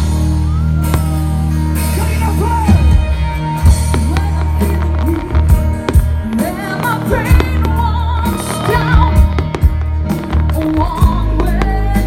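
Loud music with a singing voice over long held bass notes, with many sharp percussive hits throughout.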